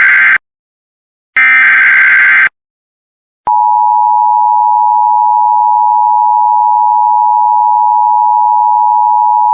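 Emergency Alert System tones: the end of one SAME header data burst, a second burst of about a second, then about three and a half seconds in the steady two-tone EAS attention signal (853 and 960 Hz) begins and holds.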